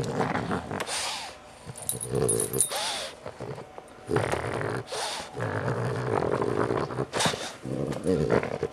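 French bulldog grunting in a series of low, buzzy bursts as it is stroked, with short noisy breaths between them.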